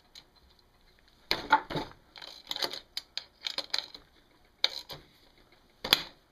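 A tool whacking the bolts of a 1979 Honda ATC110 engine, a series of sharp, irregularly spaced knocks struck to break the bolts free. The loudest knocks come about one and a half seconds in and near the end.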